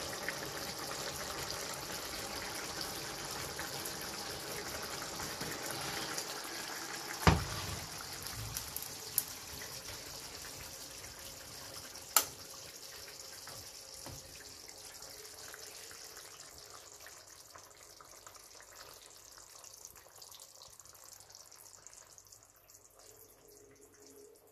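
Liver stew simmering in sauce in a wok, a steady bubbling sizzle that slowly dies away. A loud knock comes about seven seconds in and a sharp click around twelve seconds.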